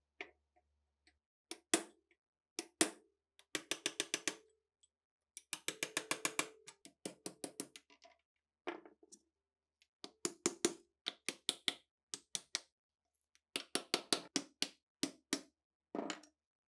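Hand-tool work on the rusty parts of a ShKAS machine gun held in a bench vise: sharp metallic clicks and knocks, some single and some in quick runs of about ten a second lasting a second or so, with short pauses between.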